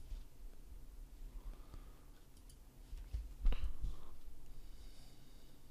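A few computer mouse clicks over faint room noise, the loudest a sharp click with a low thump about three and a half seconds in.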